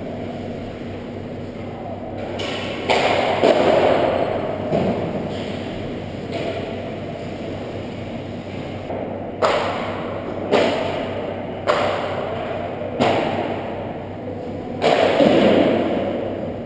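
Hockey pucks and sticks striking with sharp knocks that echo through an ice arena. There are two hits about three seconds in, four more about a second apart in the middle, and one more near the end.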